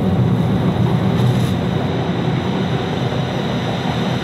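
Double-stack intermodal container train rolling past close by: a steady, loud rumble of well cars and their wheels running on the rails.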